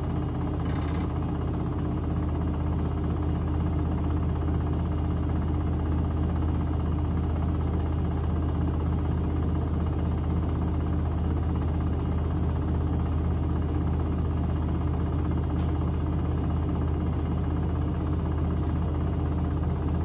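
Bauknecht WAP9988 front-loading washing machine spinning its drum at high speed: a steady, even hum with a constant low drone and a rushing whir above it.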